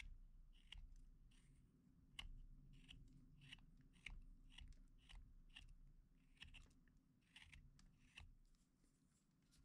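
Carving knife paring thin cuts off a small wooden block: faint, crisp slicing strokes at about two a second, stopping shortly before the end.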